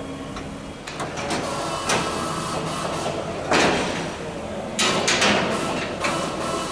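Metal parts being handled and fitted on the bench: scattered knocks and clunks, a longer scrape or slide about three and a half seconds in, and a quick cluster of knocks around five seconds.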